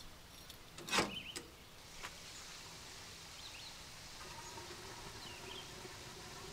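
A sharp knock about a second in, then faint outdoor ambience with small birds chirping now and then and, from about the middle on, an insect buzzing faintly.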